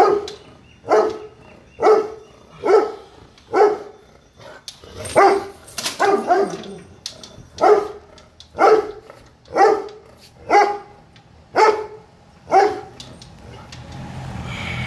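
European Doberman barking repeatedly, about one bark a second with a short lull partway through, then falling silent near the end as a steady low rumble rises.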